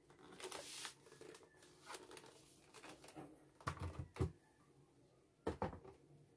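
Faint handling sounds of an Actto retro round-key wireless keyboard and a tablet: a soft rubbing about half a second in, then a few light plastic knocks and thumps about four seconds in and again near the end, as the tablet is set into the keyboard's stand slot.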